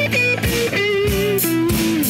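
Background music: a guitar-led band track with drum kit, a held melody line stepping down in pitch.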